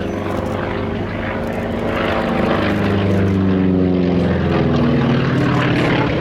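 Piston-engined propeller aircraft flying a display pass: a steady engine and propeller drone that grows louder, its pitch sliding down from about halfway through as it goes by.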